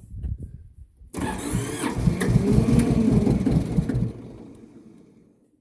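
Massey Ferguson 205-4 compact tractor's diesel engine, cold, being cranked on the starter without the glow plugs: it turns over with a rhythmic chug, catches and fires loudly about a second in, then fades and dies away near the end without staying running.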